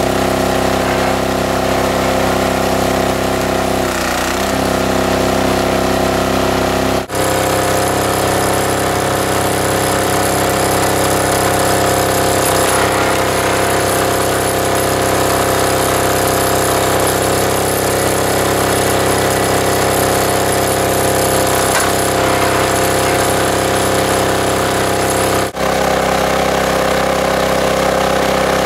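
Small diesel engine running steadily, powering the hydraulic pump of a log splitter as logs are split. The sound changes abruptly twice, about 7 and 25 seconds in.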